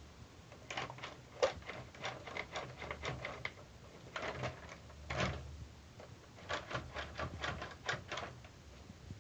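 Rapid plastic clicks and rattles from a toy New Bright RC monster truck being handled, its body and roll bar pressed and shaken by hand, in three bursts of a second or two each.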